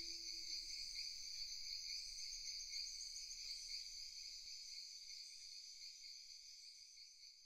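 The last held note of a flute fades out within the first second. It leaves a faint, steady chorus of chirping insects that slowly dies away.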